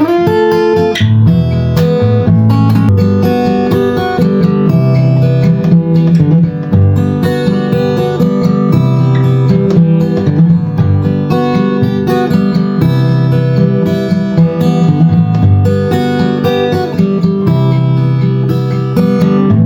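Chinese-made copy of a Martin D-45 dreadnought acoustic steel-string guitar being played, with chords ringing without a break.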